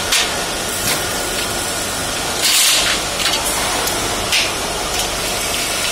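Steel shelving parts being handled and fitted, with a few light metal clicks and a half-second scraping rasp about halfway through, over a steady background hiss.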